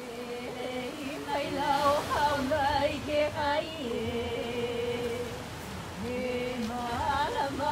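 A woman's voice chanting in long held notes that waver and bend in pitch, with surf washing in the background.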